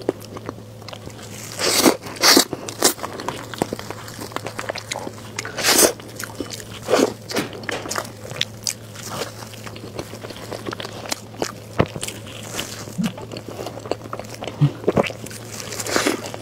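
Close-miked mouth sounds of eating soft cream cake: wet smacking and chewing in irregular bursts, loudest about two seconds in and again near six seconds. A low steady hum runs underneath.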